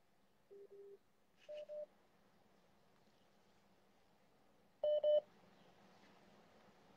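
Phone beeping: three pairs of short electronic beeps, the first pair lower in pitch, the second higher, the last pair the loudest.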